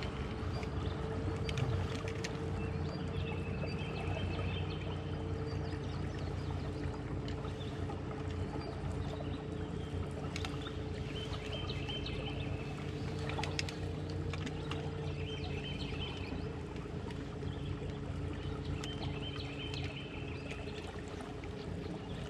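Aluminum jon boat on a river: a steady low hum with water sounds against the hull, and a few sharp knocks as a landed brown trout is handled in the boat. A bird repeats a short high trill every few seconds.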